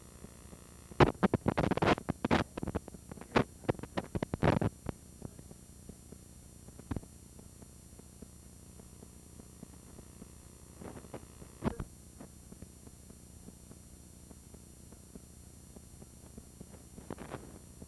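Tissue paper and a cardboard gift box rustling and crinkling as a present is opened, in a dense burst of a few seconds starting about a second in. Later come a single click and a couple of brief rustles.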